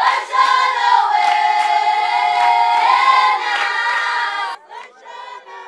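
A group of Zulu women singing together loudly, with sharp hand claps about twice a second. The singing cuts off suddenly about four and a half seconds in, leaving fainter voices.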